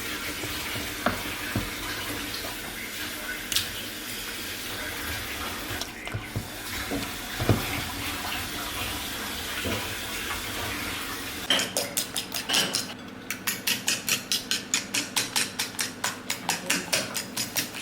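A kitchen tap runs steadily into a sink for about eleven seconds. Then it changes to quick rhythmic strokes, about three or four a second, of a whisk beating in a bowl.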